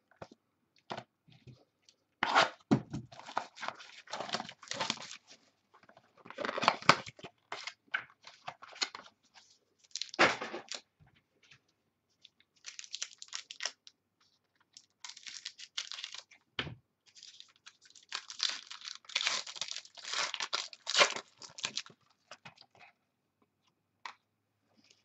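Plastic shrink wrap and packaging on a sealed trading-card box being cut with scissors and torn open, crinkling and tearing in irregular bursts with short pauses between them.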